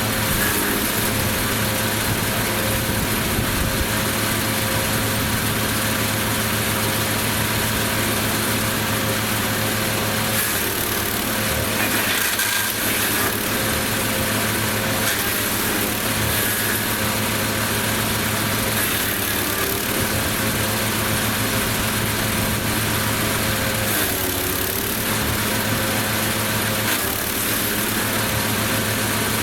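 Lumag Rambo HC15 wood chipper's petrol engine running steadily. Its note dips briefly twice, about a third of the way through and again about five seconds before the end.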